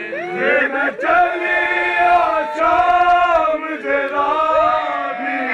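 A group of men chanting a noha, a Shia lament for Imam Hussain, in long held, sliding notes.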